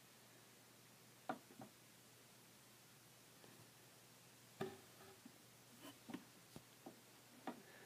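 Near silence, broken by a handful of faint, short clicks and knocks: a hand and a cat shifting among clothes in a wooden dresser drawer. The first comes about a second in; most fall in the second half.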